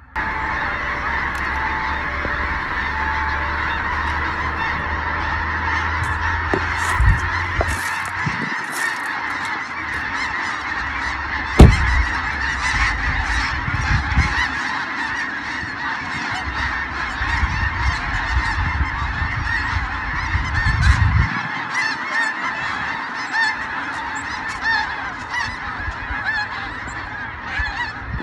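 Dense, steady chorus of calls from a huge flock of migrating birds, thousands calling at once. A low rumble comes and goes through the first two-thirds, and a sharp thump stands out about twelve seconds in.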